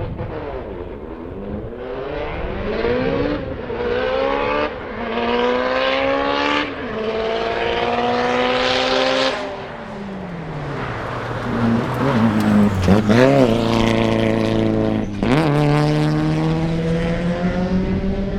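Mitsubishi Lancer Evolution VI GSR's turbocharged four-cylinder engine accelerating hard. Its pitch climbs and drops back at four quick upshifts, then falls away off the throttle. A few sharp rev blips come about two-thirds of the way in, and it pulls hard again near the end.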